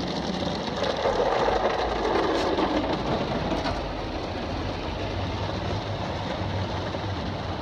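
Touch-free automatic car wash spraying water over the car, heard from inside the cabin: a steady rush of water on the glass and body, loudest in the first few seconds. A low steady hum comes in about four seconds in.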